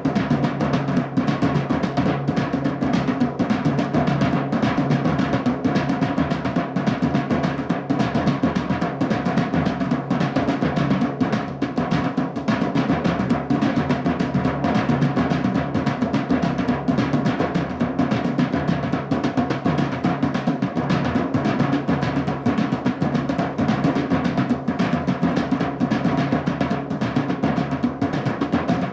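Drumming music: a dense, unbroken stream of drum strokes at a steady level.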